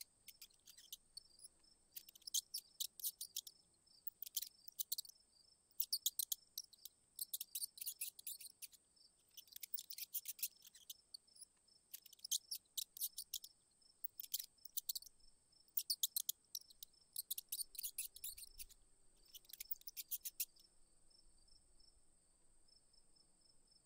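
Insects chirping: a steady high trill underneath, with short bursts of rapid high clicking chirps every second or two that stop near the end.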